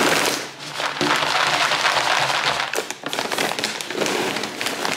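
Dry cat kibble poured from its bag into a plastic storage tub, the pellets rattling in as they pour. There are three pours, with short breaks about half a second and three seconds in.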